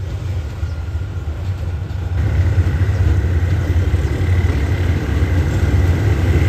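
GE GEK diesel-electric locomotive 4047 pulling a passenger train into the station, a steady deep engine rumble that grows louder about two seconds in as it draws near.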